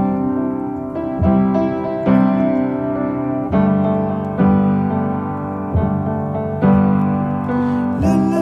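Instrumental piano passage of a song: chords struck about once a second, each ringing and fading.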